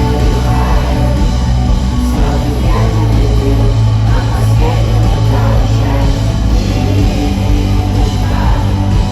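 Live rock band playing loud through a concert PA, with electric guitars, heavy bass and a singing voice.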